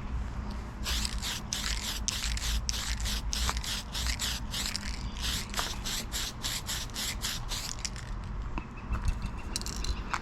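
Aerosol can of red Tamiya spray paint in use, hissing in rapid short spurts about three a second from about a second in, with a fainter steady hiss near the end.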